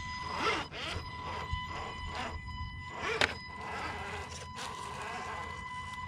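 Small electric drivetrain of a scale RC crawler whining in short bursts whose pitch rises and falls with the throttle, with clicks and knocks as it climbs over obstacles, the loudest about three seconds in.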